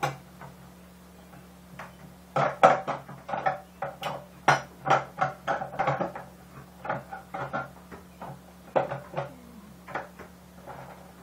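Irregular clicks, clunks and scrapes of a garbage disposal unit being worked onto its mounting flange and twisted into its mounting ring, several knocks a second for most of the stretch.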